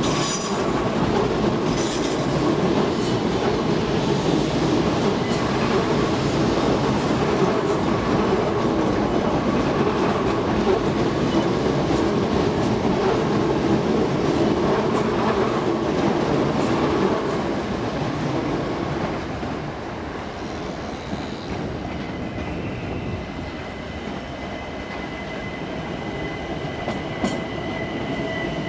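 Electric multiple-unit passenger train running over pointwork, its wheels clattering over the rail joints. The noise eases after about 17 seconds, and a steady high-pitched tone sets in a few seconds later.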